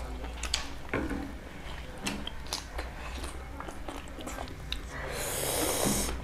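Close-miked eating by hand: chewing and lip smacks with small clicks, and fingers mixing rice and curry on metal plates. About five seconds in, a louder hissing noise lasts roughly a second.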